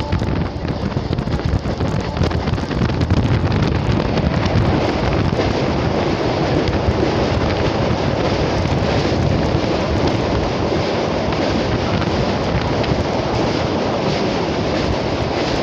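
Steady, loud rush of wind buffeting the microphone out of a moving train's window. It is mixed with the running noise of the train as it crosses a steel truss bridge.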